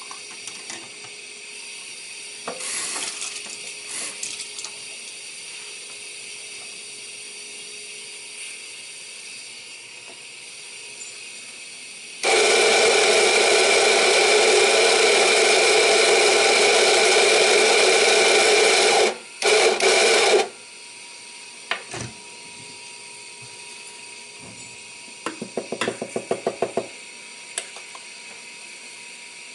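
Electric coffee grinder motor running steadily for about seven seconds from roughly twelve seconds in, then a second short burst. Near the end comes a quick, even run of clicks.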